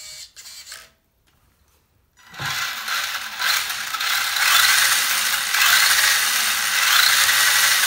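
Tamiya Boomerang RC buggy's electric drivetrain run with the wheels in the air: its Sport Tuned 540 motor spins the front and rear gearboxes and diffs in a loud, steady gear whir. The whir starts about two seconds in, swells over the next two seconds and then holds.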